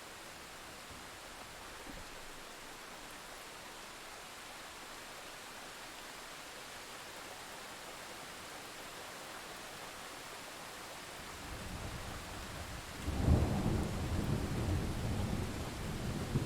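Steady rain hiss, then thunder: a low rumble builds about eleven seconds in and breaks into a loud rolling rumble about two seconds later.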